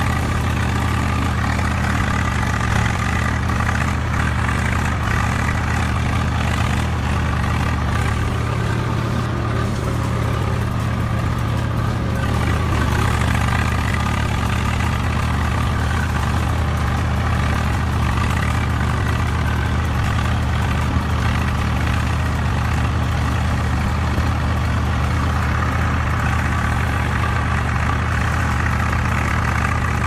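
A motor running steadily without change: a low, even hum with a fainter whine above it.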